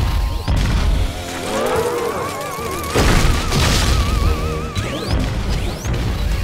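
Cartoon soundtrack: dramatic music under heavy booming thuds, with a loud crash about three seconds in and a warbling electronic tone that wavers in pitch through the middle.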